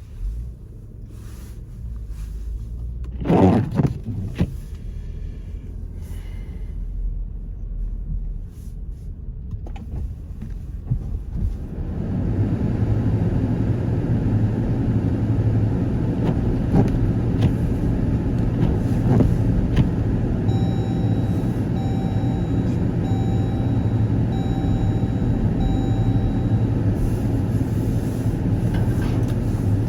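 Car interior noise: a low rumble from the engine and tyres, quiet at first and then louder and steady once the car is under way. There is a brief loud bump about three seconds in, and a run of about eight evenly spaced electronic beeps about two-thirds of the way through.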